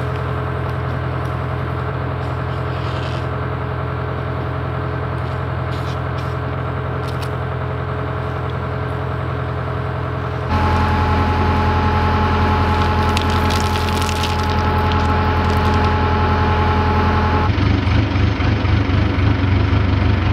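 An engine idling steadily, its level jumping up abruptly about halfway through and shifting again near the end. A brief crinkly rustle comes a few seconds after the jump.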